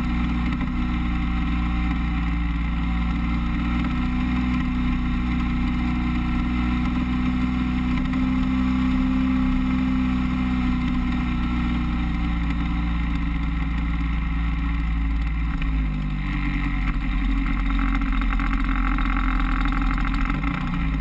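DLE 30 single-cylinder two-stroke gasoline engine of an RC Beaver floatplane running steadily, heard from an onboard camera. About three-quarters through its pitch drops as the throttle comes back for the landing, and a rushing hiss joins near the end as the floats meet the water.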